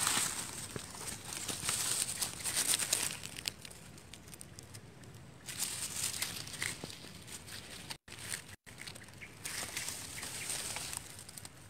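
Dry bamboo leaves, twigs and stalks rustling and crackling as a hand pushes through them, loudest in the first three seconds and again around six and ten seconds. The sound cuts out twice very briefly about eight seconds in.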